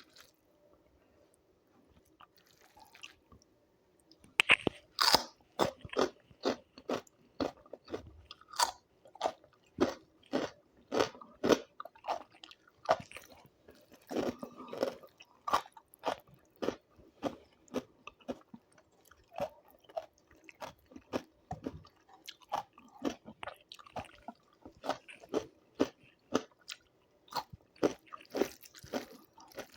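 A person chewing and crunching crisp food close to the microphone: after a quiet start, sharp crunchy bites come about two or three times a second from about four seconds in.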